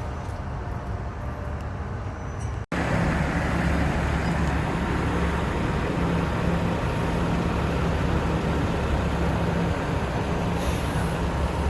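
Large diesel engine running steadily with a low, even drone, typical of a mobile crane's engine. About three seconds in the sound drops out for an instant, and the drone comes back louder.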